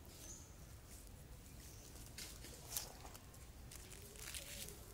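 Dry leaf litter rustling and crackling in two short bouts, about two seconds in and again near four seconds, with one sharp click, over a faint low rumble.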